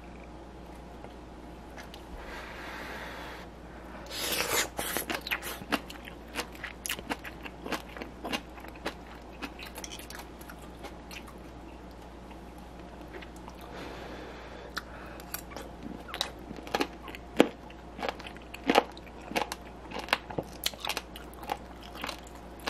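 Close-miked sticky clicks and crackles of saucy braised monkfish and bean sprouts (agujjim) being worked and lifted with metal chopsticks: a dense burst of clicks about four seconds in, then scattered single clicks.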